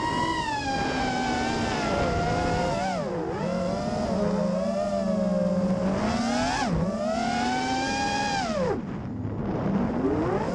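Whine of a 5-inch FPV quadcopter's Racerstar 2205 2300kv brushless motors and props in freestyle flight. The pitch rises and falls with the throttle, dips sharply a couple of times, and drops away for about half a second near the end before climbing again.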